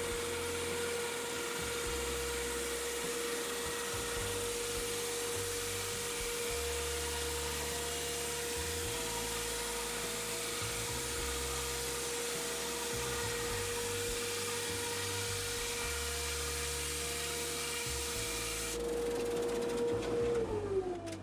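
A 14-inch Delta bandsaw with a 3-teeth-per-inch blade resawing an oak board, played back sped up: a steady high whine with a rushing cutting noise. Near the end the whine slides down in pitch as the switched-off saw runs down.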